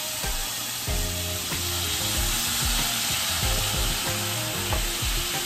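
Canned green beans sizzling as they sauté in a stainless steel skillet, a steady frying hiss, with a few light knocks.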